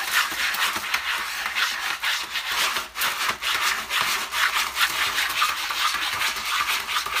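Cat digging in a litter box of dry pellet litter: quick, repeated scratching strokes of its paws raking through the pellets and scraping the plastic tray, several strokes a second.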